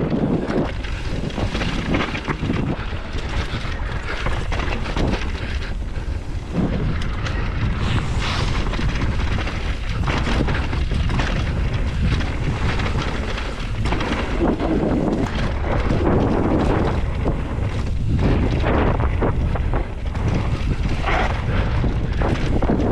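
Wind rushing over the microphone of a mountain bike descending a trail at speed, over a steady rumble of tyres with frequent short knocks and rattles from the bike.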